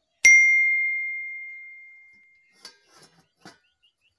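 A single bell-like ding, struck sharply and ringing on one clear high tone that fades away over about two seconds: the notification-bell sound effect of a subscribe-button animation. A few faint clicks follow near the end.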